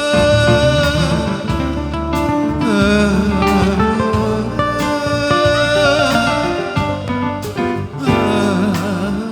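Band playing an instrumental passage of a slow Vietnamese ballad: held bass notes under a melody line that wavers in pitch about six seconds in, with a few sharp percussion strikes.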